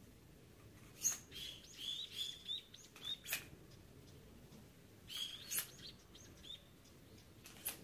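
Small bird chirping in short bursts of quick, hooked calls, in two groups, with a few sharp clicks among them.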